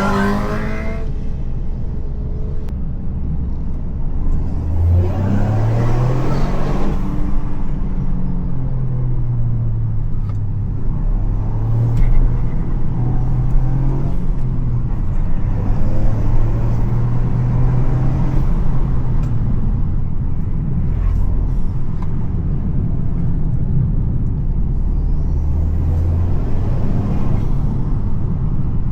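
Toyota GR Yaris's turbocharged 1.6-litre three-cylinder engine running under way, its note climbing steeply about five seconds in and again near the end, and otherwise rising and falling with the throttle.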